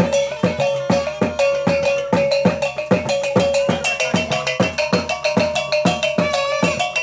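Talempong pacik: small hand-held bronze kettle gongs struck with wooden sticks by several players in a fast interlocking rhythm, each stroke ringing with a clear metallic tone. A low drum beat sounds under them about three times a second.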